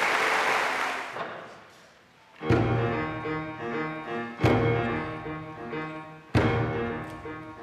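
Applause dying away, then a piano introduction: chords struck about every two seconds, each with a low djembe hand-drum stroke on the beat.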